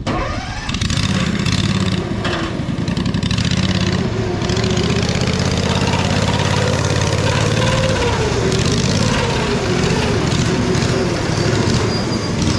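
Kawasaki 15 hp V-twin engine with no exhaust, running under load as it drives the ATV boat, with the drive chain loud as well; it comes in about a second in and then runs steadily, its pitch rising and falling a little.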